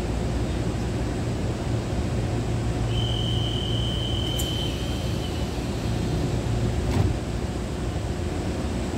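Steady low hum and rumble of an electric train standing at the platform, with a single high steady tone for about two seconds a third of the way in and a sharp click about seven seconds in.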